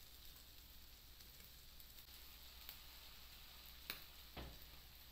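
Faint sizzle of ground pork sautéing in a wok. A few light ticks, then a click and a soft knock about four seconds in.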